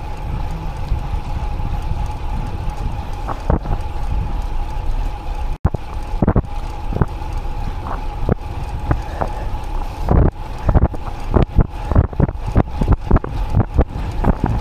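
Wind buffeting the action camera's microphone on a moving road bike, a steady low rush with a faint steady hum above it and irregular knocks and gusts that come thicker near the end. The sound cuts out for an instant about five and a half seconds in.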